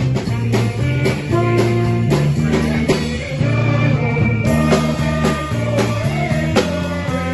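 Instrumental band music with guitar, held bass notes and a steady beat.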